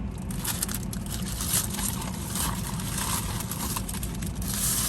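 Paper wrappers crinkling and rustling as corn dogs are handled, over the steady low rumble of a vehicle.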